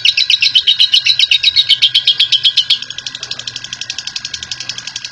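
Lovebird's long 'ngekek' chatter: a rapid run of shrill notes, about ten a second. Near three seconds in it drops suddenly to a quieter level and carries on.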